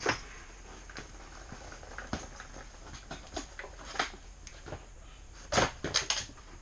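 Scattered clunks and knocks as a Honda CRF450 dirt bike is wheeled and lifted onto a bike stand, with no engine running. The loudest knocks come in a quick cluster about five and a half to six seconds in.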